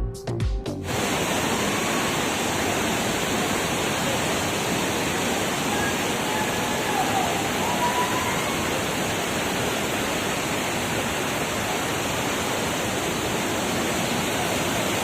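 Steady rushing of a waterfall. A music track cuts off about a second in, and faint voices come through a few seconds later.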